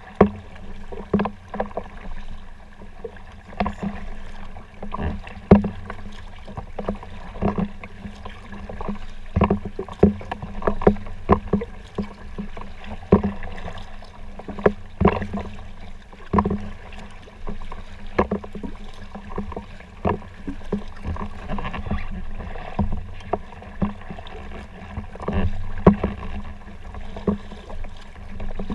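Paddling a folding kayak: the paddle blades dip and splash in the water in irregular strokes, about one or two a second, with sharp splashes and knocks over a steady wash of water.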